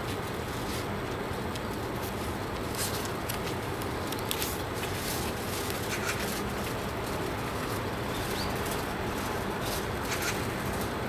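Steady outdoor background noise with a low hum, broken by a few short papery rustles and clicks as a handmade notebook's page is turned, and a brief high chirp about eight seconds in.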